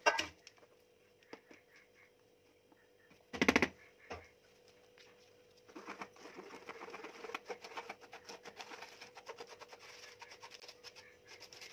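A small plastic spoon stirring and scraping flour through a fine plastic mesh sieve, a rapid, scratchy rasping that starts about six seconds in. Before it come two sharp knocks, the louder about three and a half seconds in.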